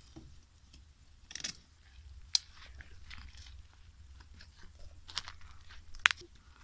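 Dry twigs crackling and snapping in a small smoky wood fire: scattered light crackles with a few sharper snaps, the loudest about two seconds in and near the end.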